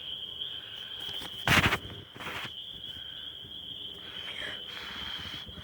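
A steady high-pitched insect trill, typical of crickets, runs underneath. A brief loud rustling noise comes about one and a half seconds in, with a fainter one just after.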